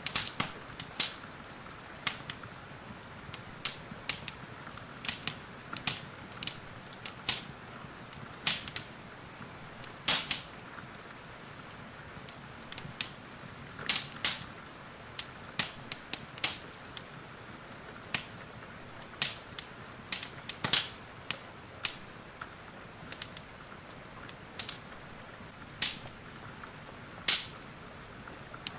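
Wood fire crackling, with sharp irregular pops, over a steady hiss of rain.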